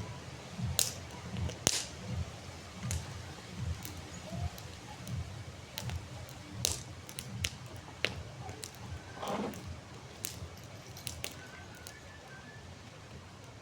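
Wood campfire crackling, with irregular sharp pops and snaps, the loudest about a second and two seconds in, over a low uneven rumble of the flames.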